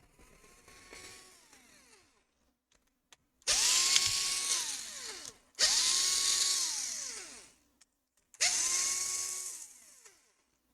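Small electric screwdriver spinning screws out of a laptop: a faint run near the start, then three louder whirring runs from about three and a half seconds in, each spinning up, holding steady and winding down.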